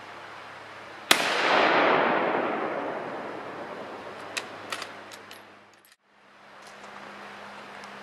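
A single shot from a Mauser K98 bolt-action rifle, its report followed by a long rolling echo that dies away over about four seconds. About three seconds after the shot, several sharp metallic clicks as the bolt is worked.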